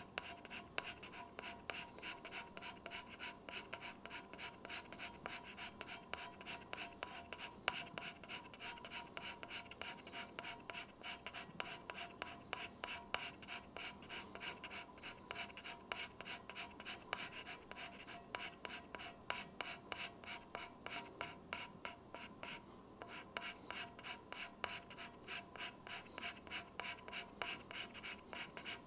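Hand scraper with a carbide blade scraping turcite slideway strips on a milling machine saddle: short, even strokes, about two to three a second.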